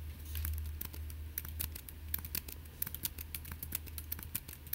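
Computer keyboard typing: quick, irregular keystrokes as code is edited, over a steady low hum.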